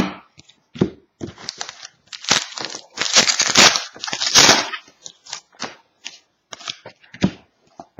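A trading card pack being torn open and its wrapper crinkled, with cards being handled: irregular sharp clicks and scratchy rustles, the longest stretch of tearing about three seconds in.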